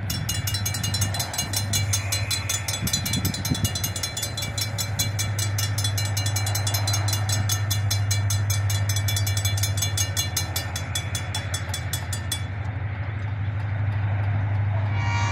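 Railroad grade-crossing bell ringing in rapid, even strikes as the crossing gates come down, stopping about twelve seconds in. A steady low hum runs underneath, and a train horn starts to sound right at the end.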